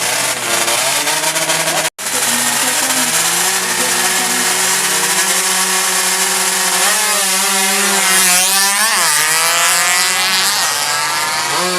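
Two-stroke underbone drag bike engine, tuned up to 116cc, running and being revved. The revs climb and drop sharply about seven to nine seconds in. The sound breaks off for an instant about two seconds in.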